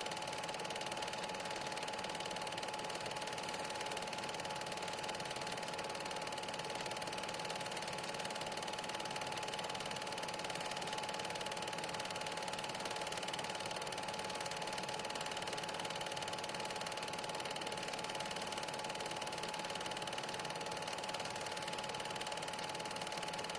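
Super 8 film projector running: a steady mechanical whirr with a constant hum-like tone over hiss, with no change at all.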